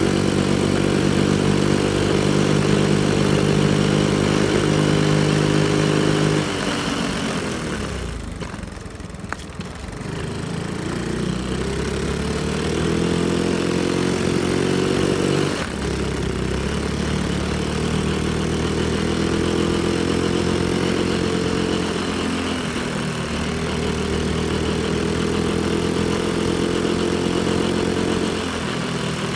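Honda Monkey minibike's small single-cylinder four-stroke engine running under way, its valves freshly adjusted. The engine note drops off about seven seconds in, then climbs again several times as it pulls away, with a sudden change in pitch about halfway through.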